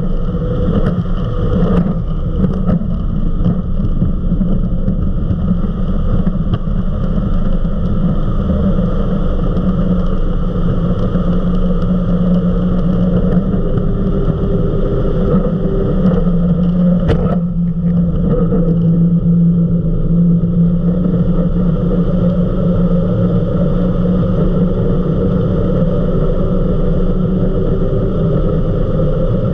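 The engines of an Eliminator 31 XO Speedster performance boat run hard at speed, a loud, steady drone, with wind and water rushing past the deck.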